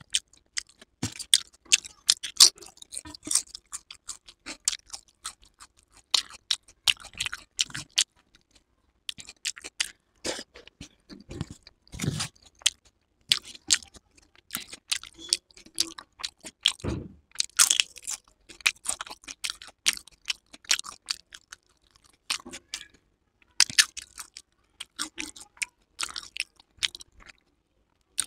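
Close-miked eating sounds: a person chewing and crunching mouthfuls of chole chawal, a run of quick wet clicks and crunches broken by two short pauses.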